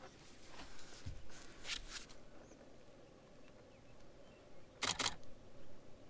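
Canon 5D Mark IV DSLR shutter firing in two short bursts of two frames each, one about a second and a half in and a louder one near five seconds in.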